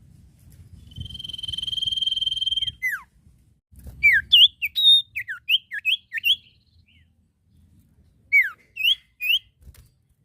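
Common iora (sirtu, cipoh) singing: a long steady whistle that swells for about two seconds and ends in a falling note, then a quick run of short whistles slurring up and down, and three more notes near the end.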